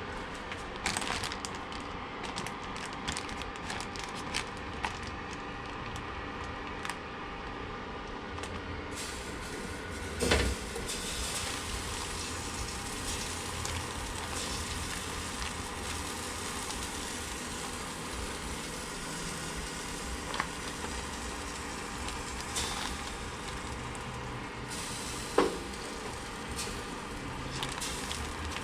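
Cosori air fryer oven preheating with a steady fan hum. Over it come scattered small clicks and plastic rustling as tongs work in a zip-top bag of marinated chicken, with a louder knock about ten seconds in and a sharp click near the end.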